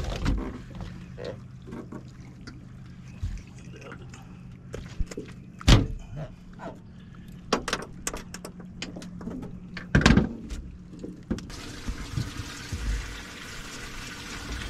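Knocks, clicks and rattles from a channel catfish being unhooked with pliers in a landing net on an aluminium boat deck, with two loud bangs, one about six seconds in and one about ten seconds in. A steady low hum runs under most of it.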